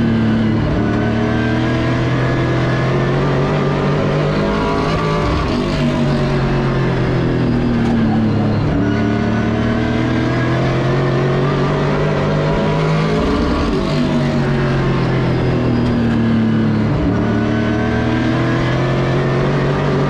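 Pro Late Model race car's V8 engine heard from inside the cockpit under racing load, its pitch climbing on the straights and dropping each time the driver lifts into a corner, about every four seconds.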